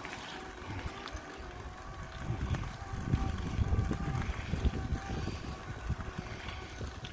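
Wind buffeting the microphone of a camera on a bicycle climbing slowly uphill, an irregular low rumble that is strongest from about two to five seconds in.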